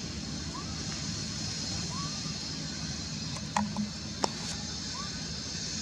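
Steady outdoor background noise with a high hiss. Faint short chirps come now and then, and about halfway through there is a brief louder sound followed by a single sharp click.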